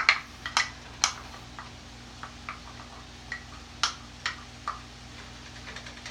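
Wooden spoon knocking and scraping against a small white cup: sharp clicks, several close together in the first second, then fewer and softer ones spaced about half a second apart.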